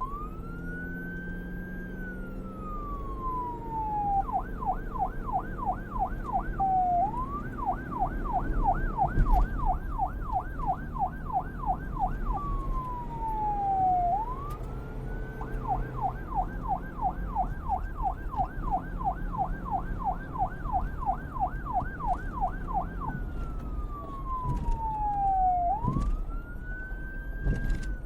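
Police car electronic siren switching back and forth between a slow wail, rising and falling between high and low pitch, and a fast yelp of about three quick sweeps a second. A low vehicle rumble runs underneath.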